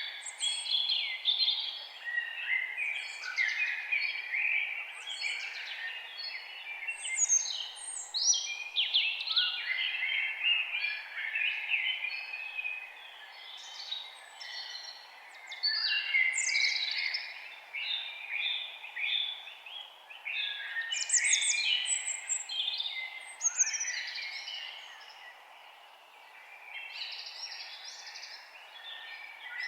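Many songbirds singing and calling over one another in woodland, a dense chorus of quick chirps and trills, over a faint steady hiss. The chorus thins out for a few seconds near the end.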